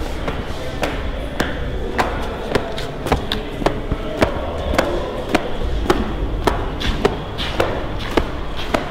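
Footsteps on a hard floor at a steady walking pace, a little under two steps a second, over a steady low background noise.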